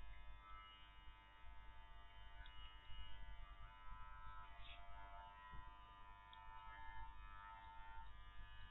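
Electric hair clipper running steadily while it cuts through a dog's curly coat, a faint buzz whose pitch shifts slightly as it moves.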